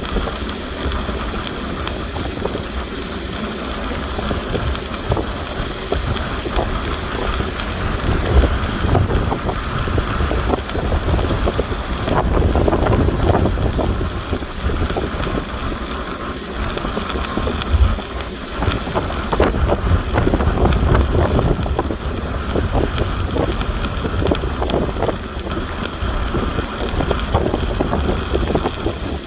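Stick arc welding: the electrode's arc crackling and sizzling steadily, over a low steady rumble.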